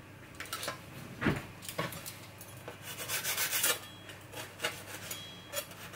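A knife sawing through a crisp oven-baked tortilla wrap in a series of short scraping strokes, with a duller knock about a second in.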